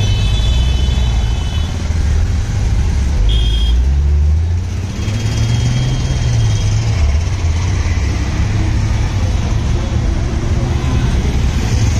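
A steady low rumble of outdoor background noise, with a few short high-pitched tones in the first half.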